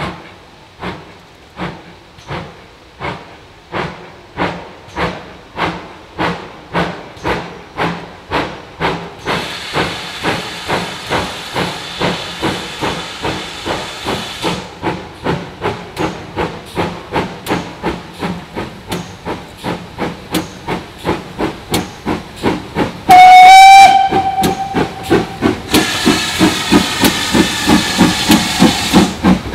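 GWR Manor-class 4-6-0 steam locomotive No. 7820 Dinmore Manor working a short goods train, its exhaust beats growing louder and quicker as it approaches. Steam hisses for a few seconds about ten seconds in and again near the end, and the whistle gives one short blast about 23 seconds in, the loudest sound.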